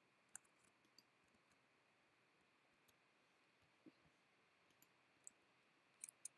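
Near silence with faint, scattered computer mouse clicks, including a quick cluster of clicks near the end.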